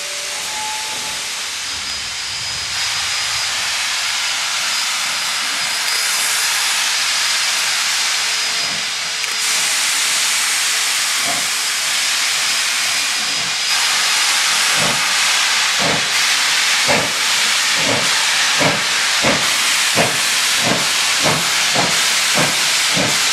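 Steam locomotive approaching with its cylinder cocks open, blowing a loud steady hiss of steam. About halfway through, the exhaust chuffs from the stack come in and settle into an even beat of about one and a half a second, growing louder as the engine nears.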